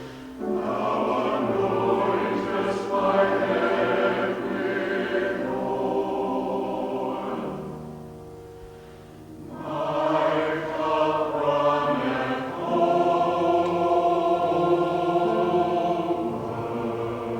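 A choir singing in sustained, held notes. The singing fades about eight seconds in and picks up again about two seconds later.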